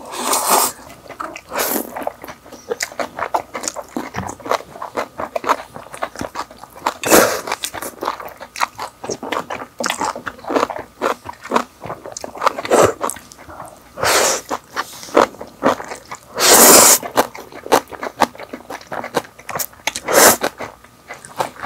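Close-miked eating: Chapagetti black-bean noodles slurped in several loud half-second bursts, with continual wet chewing and crunching of sauce-coated boneless fried chicken in between.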